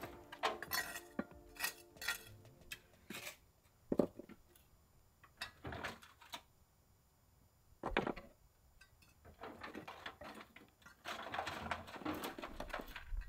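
Scattered knocks, clinks and scrapes of hand stone-and-concrete work, with a longer run of scraping near the end.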